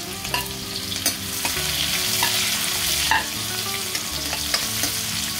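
Sliced onions and green chillies sizzling in hot oil in a kadhai, with a steel spoon clicking and scraping against the pan as they are stirred. The sizzle swells in the middle.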